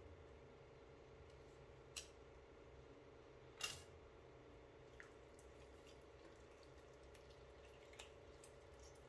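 Near silence with a steady low hum, broken by a few short light clicks and knocks, the sharpest about a third of the way in, from knives and a whole raw chicken being handled on a plastic cutting board.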